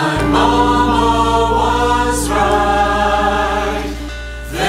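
Mixed SATB choir singing slow, held jazzy chords over a steady low bass note, moving to a new chord about two seconds in.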